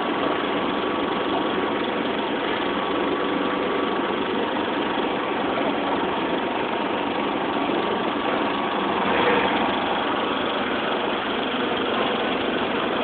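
Engine idling steadily under a faint thin whine, with a slight swell about nine seconds in.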